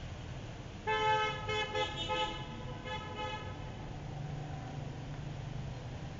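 Vehicle horn honking in several short, broken blasts, starting about a second in and stopping after about two and a half seconds, over a steady low rumble of traffic.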